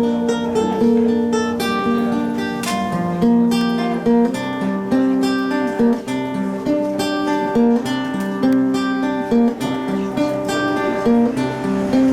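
Acoustic guitar playing an instrumental passage, a steady run of plucked and strummed notes.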